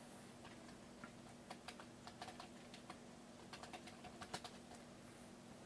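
Faint, irregular keystrokes on a computer keyboard, coming in two short flurries of typing.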